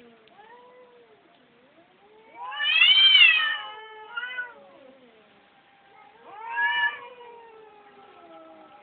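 Cat meowing: a loud, drawn-out meow about two and a half seconds in, a short one right after it, and another loud meow about six seconds in, with fainter meows between them.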